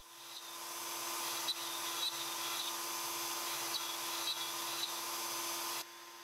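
Avid CNC router spindle running as a thin bit cuts into a wood sheet: a steady whine over a hiss of cutting, with a few faint ticks. The sound fades in over the first second and drops abruptly to a quieter level near the end.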